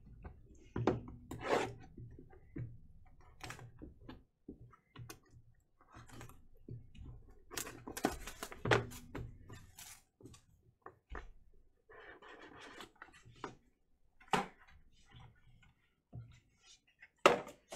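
Trading card boxes and hard plastic graded-card slabs being handled on a table: scattered light clicks, taps and knocks, with a short spell of rustling about twelve seconds in and a sharper click near the end.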